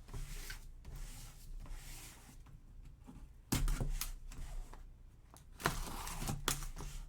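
Cardboard box and packaging being handled and opened: irregular rustling and scraping, growing louder about halfway through.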